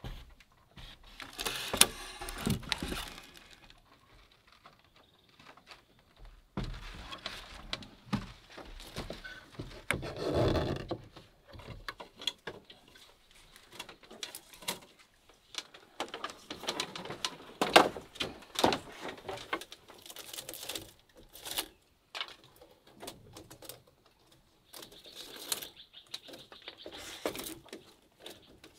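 Intermittent handling sounds of bamboo and rattan: knocks, clatter and rustling in separate bursts with quiet gaps between, starting with a pole working in the water as a bamboo raft is pushed along.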